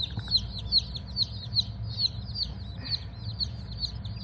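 A box of baby chicks peeping without pause: many short, high cheeps sliding downward in pitch, several a second and overlapping from several chicks at once, over a steady low hum.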